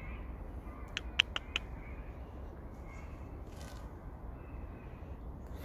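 Crows cawing faintly, with a quick run of four sharp clicks about a second in, over a low steady rumble.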